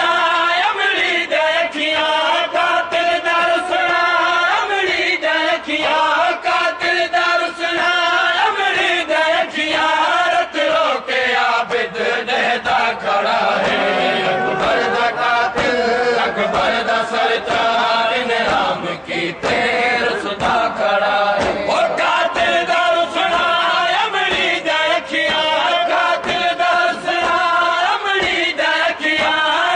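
Men chanting a Punjabi noha, a Shia mourning lament, one voice leading and a group of men singing together, unbroken, with a long sliding line held near the middle.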